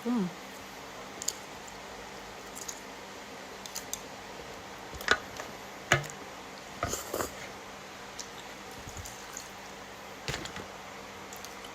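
Soft eating sounds of a bowl of instant noodles: scattered clicks and taps of utensils and mouth noises, with a short falling hum at the start.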